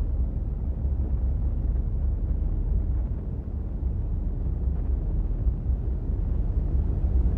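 Strong wind blowing in a steady low rumble that swells and eases a little.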